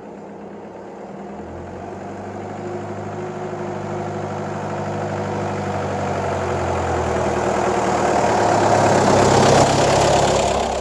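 1989 Mitsubishi Pajero 4x4 engine running at a steady pace, growing steadily louder as the vehicle approaches and drives over, loudest near the end as its underside passes overhead.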